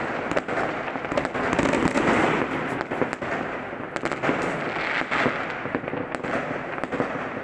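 Many fireworks going off at once: a continuous crackle with frequent sharp bangs.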